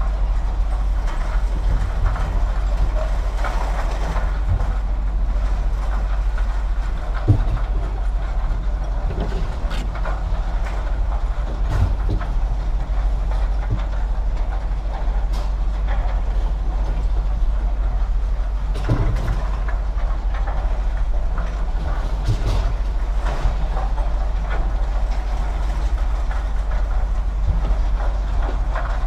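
Steady low rumble of a vehicle on the move, with scattered knocks and rattles.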